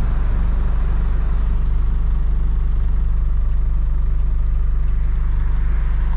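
Hino cab-over box truck's diesel engine running with a steady low drone, heard from inside the cab.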